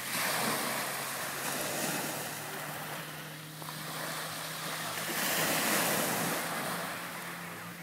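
Small sea waves washing up onto a beach. The rush of surf swells twice, just after the start and again about five to six seconds in, and eases off between.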